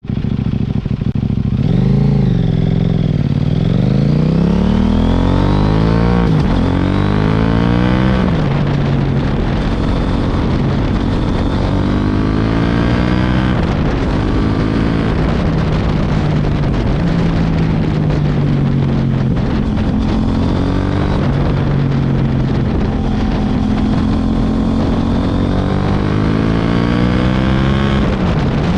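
CFMOTO 800MT parallel-twin engine through a LeoVince aftermarket exhaust. Its pitch climbs and drops back several times in the first eight seconds, then it runs fairly steadily with smaller rises and falls.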